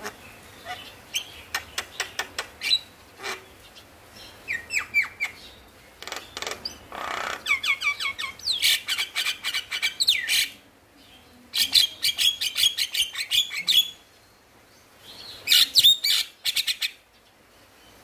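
Male Javan myna singing in bursts of rapid chattering chirps and clicks. The bursts last a second or two each and come with short pauses between them.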